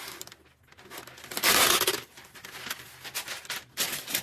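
Baking parchment being pulled off its roll and torn from the box, with one loud rip about a second and a half in, then rustling and crinkling as the sheet is laid flat on a baking tray.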